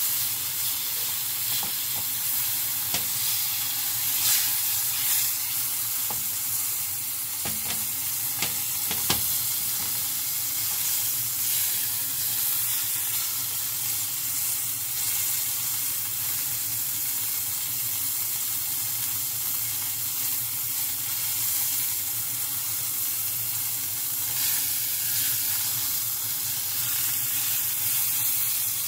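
Beef round searing in olive oil in a frying pan, a steady sizzle with a few light clicks in the first nine seconds or so.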